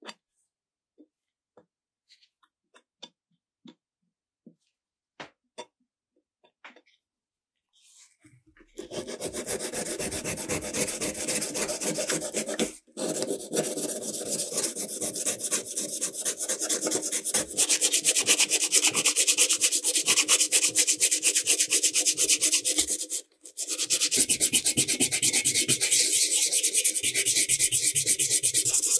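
A few light clicks and taps, then about nine seconds in a power tool starts sanding a metal horn part, running steadily and stopping briefly twice.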